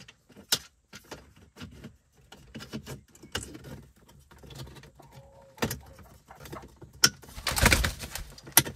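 Plastic dashboard trim of a BMW E46 being pushed and clipped back into place by hand: a run of sharp clicks and knocks, with a louder rustling scrape of plastic near the end.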